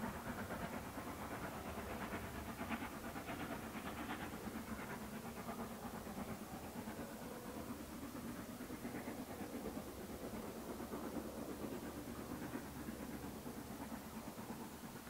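Exhaust beats of SR Schools Class 4-4-0 No. 30925, a three-cylinder steam locomotive, chuffing steadily as it hauls its train away, slowly fading with distance.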